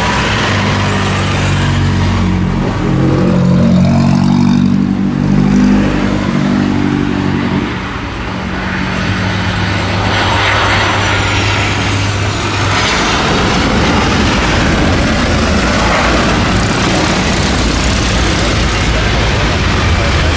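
Jet airliner engine noise, a steady loud roar. About nine seconds in, a high whine bends in pitch.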